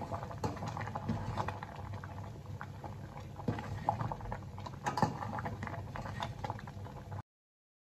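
Thick kheer (rice cooked in milk) bubbling and popping at a simmer in a steel pot, with a steel spoon stirring and clicking against the pot now and then. The sound cuts off suddenly near the end.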